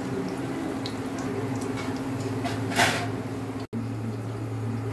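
Dough balls deep-frying in hot oil: a soft bubbling sizzle with scattered small crackles over a steady low hum, and one short loud hiss about three seconds in.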